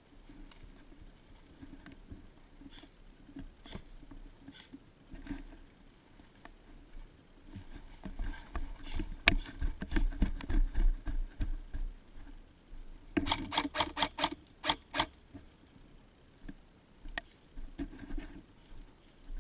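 Footsteps and gear knocking, heard through a GoPro's waterproof housing, as the wearer moves through grass. The knocking and rustle grow denser about eight seconds in. A quick run of sharp clicks follows about thirteen to fifteen seconds in.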